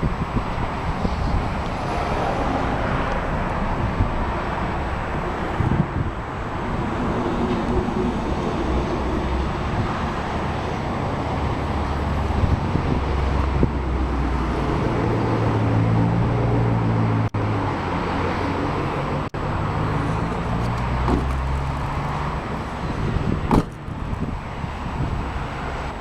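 Road traffic noise with some wind on the microphone. A vehicle's low hum grows louder in the middle and then eases off.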